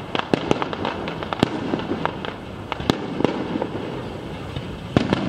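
Aerial fireworks going off: irregular sharp bangs and crackling pops from the bursting shells, a few louder reports among many smaller cracks, over a steady background hiss.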